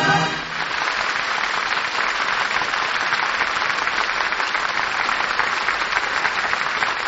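Audience applauding steadily as a sung orchestral number ends; the final held note of the singer and orchestra cuts off about half a second in. Heard through a 1948 radio broadcast recording with a dull, narrow sound.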